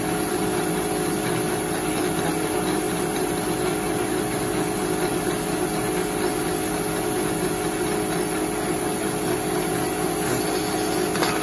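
Heidelberg folding machine running with a steady mechanical hum. A brief click sounds near the end.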